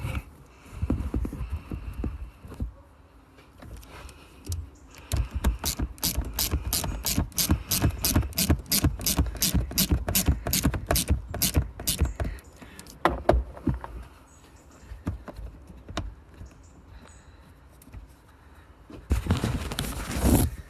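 Hand-tool work on an engine's vacuum line: handling and scraping noises, then a fast, even run of sharp clicks, about four a second, lasting several seconds, followed by scattered knocks and a short scraping burst near the end.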